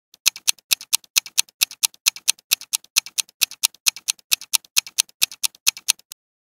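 Countdown-timer sound effect of a clock ticking, about four sharp ticks a second with quieter ticks between. It stops abruptly shortly before the end.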